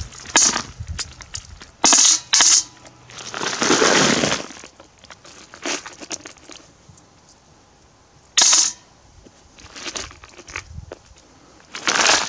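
Russian coins tipped from a plastic canister into an empty galvanized steel bucket, clinking and rattling onto its metal bottom in irregular bursts with quieter gaps between.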